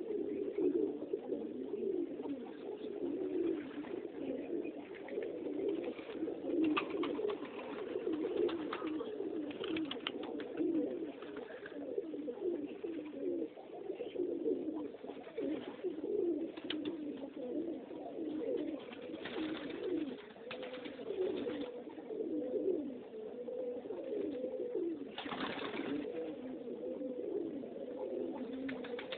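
Many domestic pigeons cooing together in a steady overlapping chorus, with a few short sharp noises scattered through it.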